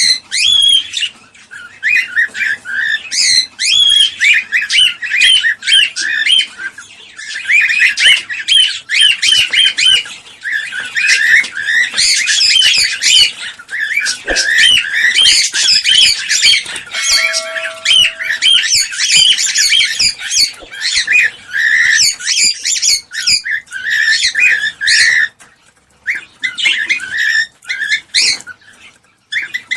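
Cockatiels chirping in rapid, near-continuous runs of short shrill notes, with a pause of a few seconds near the end.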